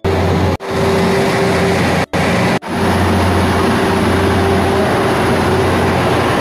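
Steady mechanical hum of station machinery, a low drone with a higher steady whine over a noisy rumble. It is cut by several brief dropouts in the first three seconds.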